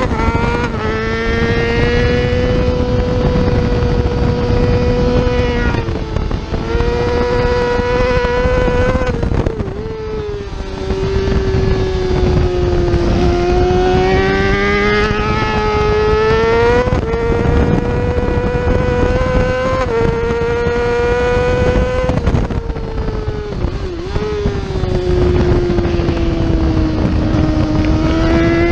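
Yamaha R6 race bike's 600cc inline-four engine running hard at high revs. Its pitch climbs, steps down and dips again and again as the rider shifts gear and rolls the throttle on and off through corners. Wind noise runs underneath.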